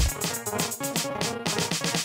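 Electronic dance track in a stripped-down breakdown: no kick drum or bass, just quick, evenly spaced hi-hat ticks and scattered synth notes.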